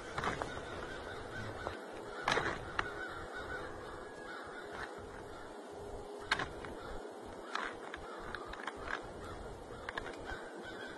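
Two addax sparring, their long spiral horns knocking together in several sharp, irregular clacks, the loudest about two seconds in and again about six seconds in.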